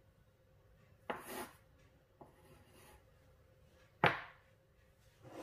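A steel ring mould knocked down on a bamboo cutting board: a knock about a second in with a brief rustle after it, a faint tap near the middle, and a sharper, louder knock about four seconds in.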